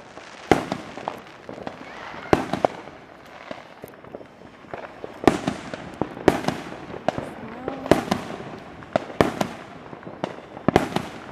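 Neighbourhood fireworks going off in the distance: about a dozen sharp bangs and pops at irregular intervals, some close together, the loudest about half a second in, near the middle and toward the end.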